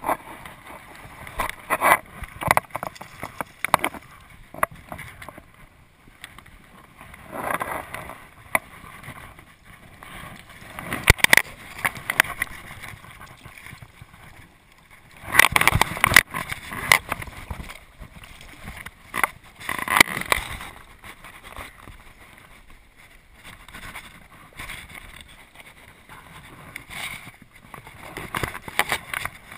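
Irregular splashing and knocking as a hooked fish is drawn into a landing net and handled in river water, over a steady wash of noise. The loudest bursts of splashing come in the middle.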